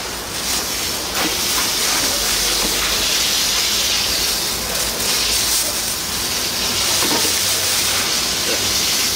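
Steady hissing noise, even and unbroken, strongest in the high range.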